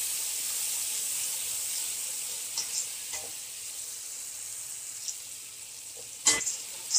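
Tomatoes, browned onions and cumin sizzling in hot oil in a metal pot, the hiss slowly fading. A metal slotted spoon scrapes the pot a few times, with one sharp knock against the pot near the end.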